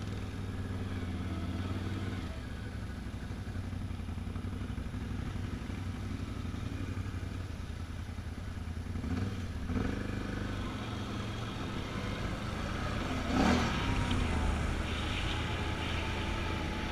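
Can-Am Outlander ATV engine running at low speed as it is ridden, its note shifting a little with the throttle. About two-thirds of the way through there is a brief louder burst.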